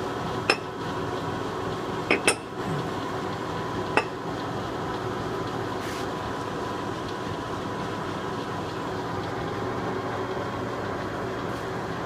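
Poreba 46-inch heavy engine lathe running, with a steady hum from its gearbox and feed drive. Sharp metallic clinks sound about half a second in, twice in quick succession just after two seconds, and once more at four seconds.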